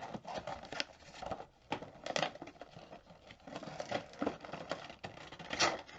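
Packaging being handled and unwrapped: irregular rustling and crinkling with short scrapes and clicks, loudest about two seconds in and again near the end.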